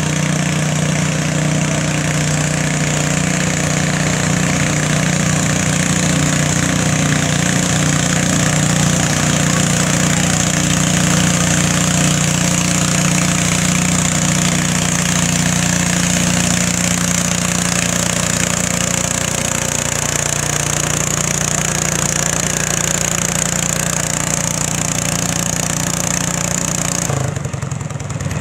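Small garden-tractor engine running steadily under load as it drags a weight sled, its note holding nearly level with a slight dip about two-thirds of the way through. The sound breaks off abruptly just before the end.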